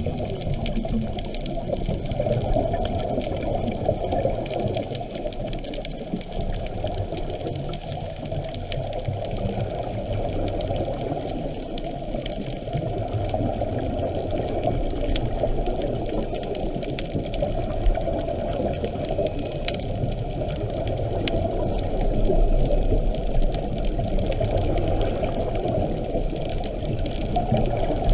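Muffled underwater rushing and bubbling from a scuba diver's regulator exhaust and the moving water, heard through a camera's waterproof housing. It runs steadily with no clear breaks and swells slightly for a few seconds about two thirds of the way in.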